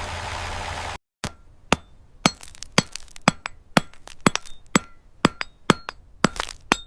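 A steady noise for about a second that cuts off, then a hammer striking metal over and over, about two blows a second, each blow with a short ringing.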